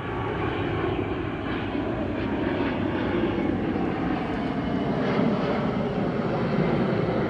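Fixed-wing aircraft flying past, its engine noise a dense, steady rumble that grows slightly louder over the seconds.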